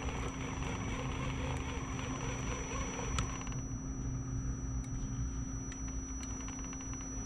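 Scale RC crawler truck's electric motor and geared drivetrain running slowly under load as it crawls up a steep rock wall, a steady whine over low rumble. The higher part of the noise drops away about halfway through.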